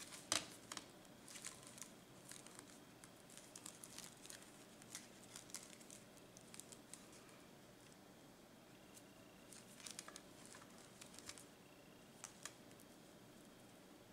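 Faint, irregular clicks and ticks of beads and thin wire being handled as the wire is twisted tight to fasten a beaded flower onto a bead wreath.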